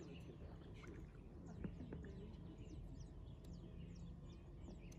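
Faint songbird chirps: a run of short, quick down-slurred notes repeated two or three times a second, over a low, steady outdoor hush.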